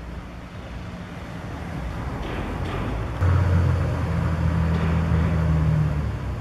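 Heavy machinery engine running with a low drone, which suddenly gets much louder about three seconds in and holds steady until shortly before the end.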